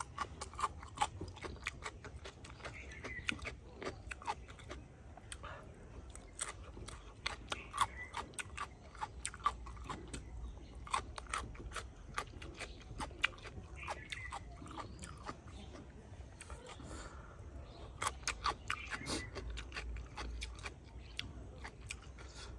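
A person chewing food close to the microphone with the mouth open: a steady run of quick, irregular wet smacks and clicks.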